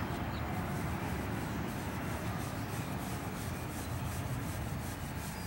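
A paintbrush scrubbing chalk paint into a woven cane panel in small circular strokes: a steady rubbing noise.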